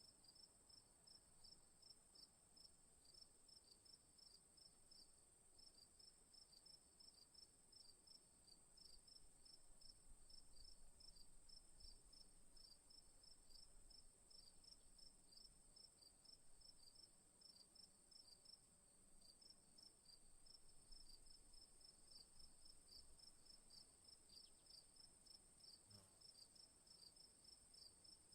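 Crickets chirping faintly: one high, unbroken trill, with a lower chirp pulsing evenly about three times a second beneath it.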